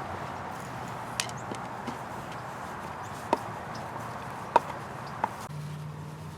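Five sharp clicks and taps of hand work on the outboard's lower gear case, as the oil pump fitting comes off and the top fill plug is put back, over a steady background hiss.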